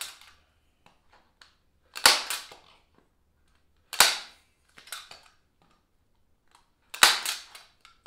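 Staple gun firing staples into plywood along a glued scarf joint, three sharp snaps about two to three seconds apart with fainter clicks between as it is repositioned; the staples clamp the joint while the glue cures.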